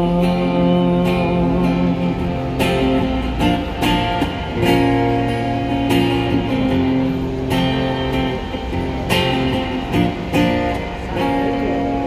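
Amplified acoustic guitar strumming chords in an instrumental passage of a Cantopop song, with chords held for a second or two between strokes.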